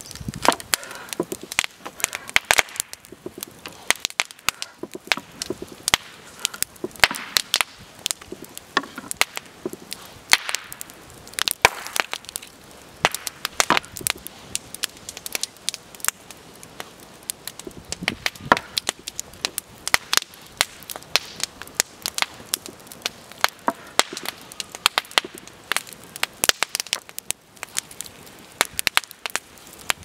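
Large cleaver-style knife chopping vegetables on a thick wooden cutting board: many sharp knocks in irregular runs, with short pauses between them.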